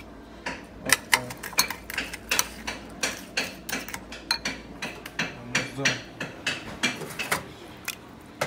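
Metal spoon clinking and scraping against a bowl while stirring granola with a creamy topping: a quick, uneven series of clinks, a few a second, that stops shortly before the end.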